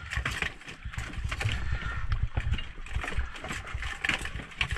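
A diver climbing out of the sea up a boat's metal swim ladder: water splashing and running off him, with irregular knocks and clunks of gear against the ladder.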